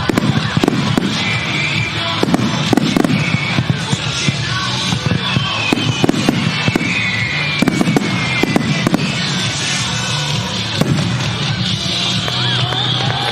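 Firework shells launching and bursting in quick succession, a string of deep booms with crackling between them, heard close to the launch site. Music plays along underneath, since the shells are fired in time with it as a music starmine.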